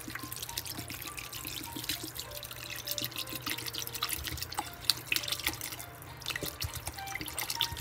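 Water poured from a plastic bottle into a pot of kimchi and pork, splashing and trickling steadily onto the ingredients.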